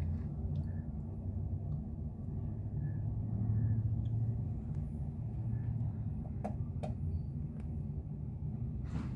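Steady low rumble of distant road and airport traffic, with a few faint clicks in the second half.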